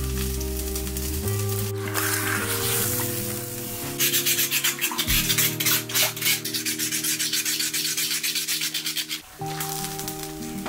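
Background music throughout, joined about four seconds in by quick, even scraping strokes as a piece of charred cured pork is scrubbed in an iron wok; the scraping stops about nine seconds in.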